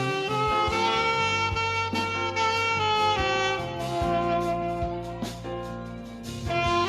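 Saxophone playing a worship melody of long held notes over a backing track with a steady bass line and light percussion.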